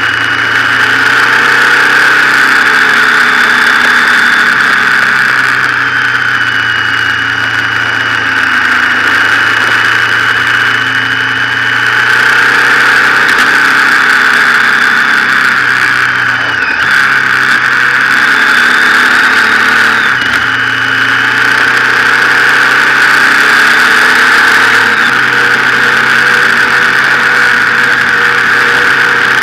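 Motorcycle engine running on the move, its pitch rising and falling with the throttle, under a steady rush of wind on the camera microphone. The engine sound breaks briefly twice, about 17 and 20 seconds in.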